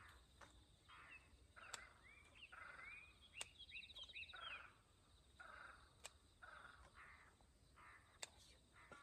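Near silence with faint birds calling in short rising and falling chirps, soft rustles every second or so, and about four sharp clicks.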